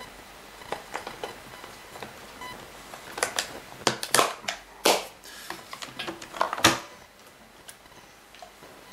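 Hard plastic clicks and knocks as the rear wheels and hubcaps of a Kirby G4 vacuum are handled and fitted. A scatter of sharp clicks, thickest in the middle, with the loudest knock about two-thirds of the way in.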